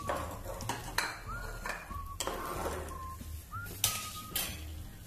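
A metal spoon stirring food colour into water and diced pineapple in a pan, clinking against the pan several times, some clinks ringing briefly.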